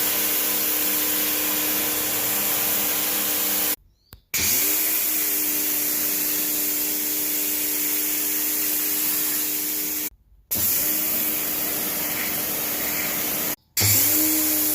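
PowerPlus POWXG90408 electric pressure washer running, its motor whining steadily over the high hiss of the water jet. It cuts out three times and each time spins back up, the whine rising quickly to pitch.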